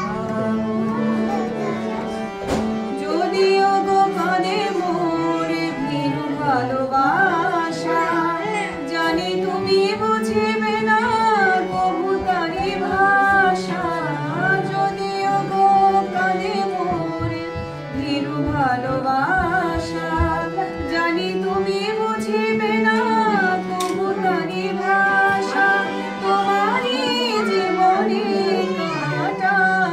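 A woman singing a Bengali song, accompanying herself on a harmonium whose held reed notes sustain under the melody.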